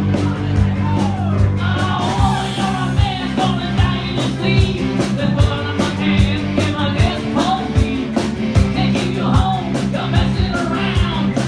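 Live rock band playing with electric guitar and drums, and a man singing lead into a microphone, his voice coming in about two seconds in.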